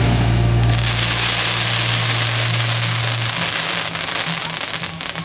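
Fireworks crackling and hissing, with a sharp pop or two about half a second in. Beneath them runs a steady low hum that stops a little past halfway.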